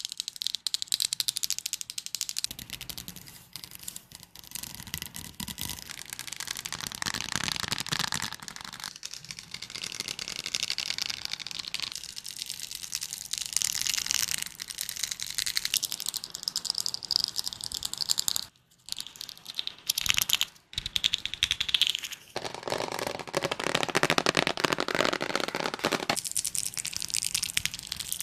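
A run of close-miked ASMR trigger sounds: dense, rapid clicking and crackling, like fingertips tapping, scratching and crinkling objects. The sound changes character every few seconds as one trigger gives way to the next, with two brief near-silent gaps a little past the middle.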